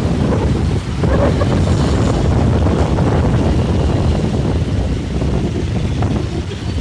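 Heavy wind buffeting a handheld phone's microphone, with road traffic and motorcycles running underneath.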